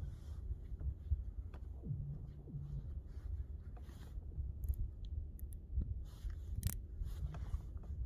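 Frozen lake ice making noise: several short tones that slide down in pitch, and a few sharp cracks, over a low rumble.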